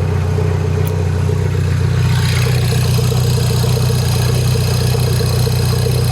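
Mini Cooper S four-cylinder engine idling steadily, with a faint extra noise that the owner hears from one side of the engine but cannot place. The idle gets a little fuller about two seconds in.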